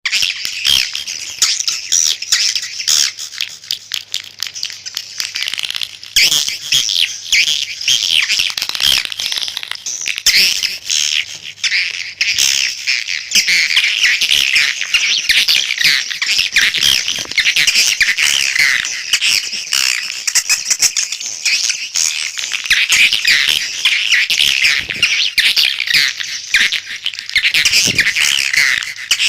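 Swiftlet lure call: a dense, continuous chorus of rapid, high twittering chirps and clicks from many swiftlets, played to draw edible-nest swiftlets into a swiftlet house.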